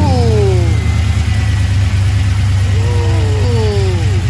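An engine idling with a steady low rumble. Twice, about three seconds apart, a set of higher tones slides downward over it.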